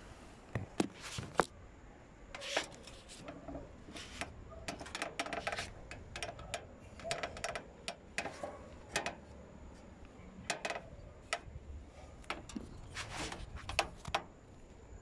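Irregular knocks, clicks and scrapes of a phone being handled and jostled close to its microphone, with a faint steady high whine throughout.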